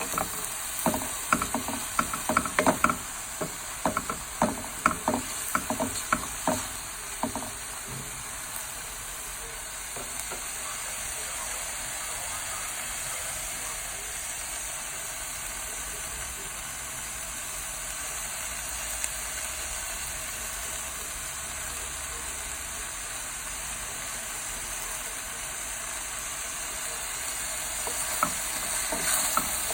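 Vegetables sizzling in a hot pan of oyster sauce as they are stir-fried. A spatula clatters and scrapes against the pan in quick strokes for the first seven seconds or so and again near the end, with a steady sizzle in between.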